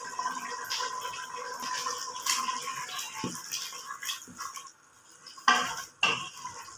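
A black cooking spoon stirring chickpeas and ginger-garlic paste through a wet gravy in an aluminium pressure cooker, scraping and knocking against the pot. The sharpest, loudest clacks come a little over five seconds in.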